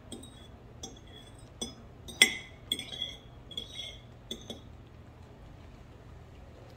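Metal fork clinking against a ceramic dish while breaking up wet cat food: about nine sharp clinks with a ringing tone over the first four and a half seconds, the loudest just after two seconds in, then they stop.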